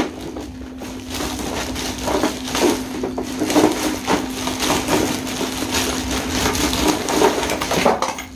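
Clear plastic wrapping crinkling and rustling as it is pulled off a plastic ride-on toy car, a steady run of irregular crackles.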